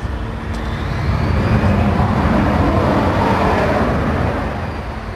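Military jet going past at speed on the runway: its jet engine noise swells, holds as it passes closest, then fades with a faint falling whine.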